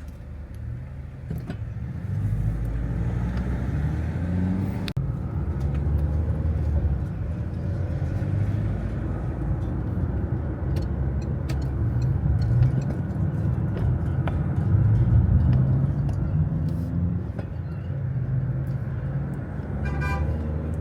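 Low engine and road rumble of a moving vehicle heard from inside, the engine note stepping up and down as it speeds up and slows.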